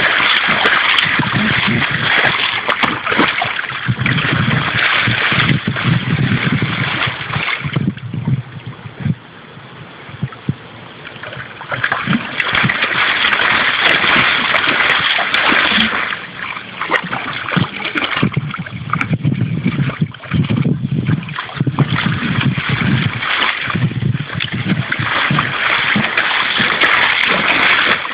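A Weimaraner pawing and splashing hard in shallow water, digging at a toy lying under the surface. The splashing goes in bouts, easing off for a few seconds about a third of the way in.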